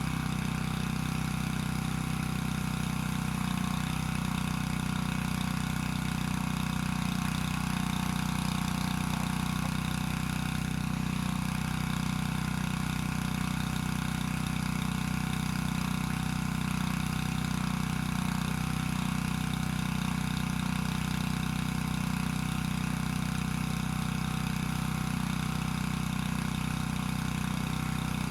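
Small engine-driven water pump running steadily at constant speed, moving water through its hoses.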